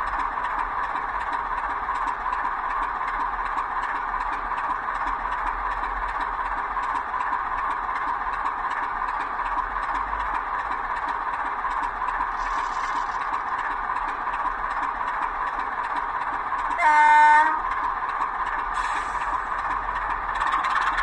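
Sound decoder in a model Class 25 diesel playing a recording of the real locomotive's Sulzer engine idling steadily through the model's small speaker. A short horn blast sounds near the end.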